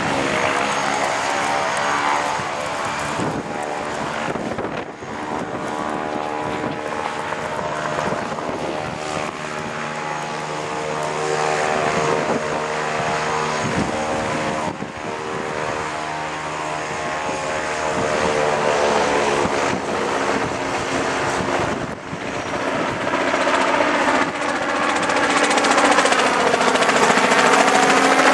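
Single-engine propeller light aircraft running on the airfield: an engine and propeller sound with a stack of steady tones. Over the last few seconds a light helicopter passes, getting louder, its pitch bending as it goes by.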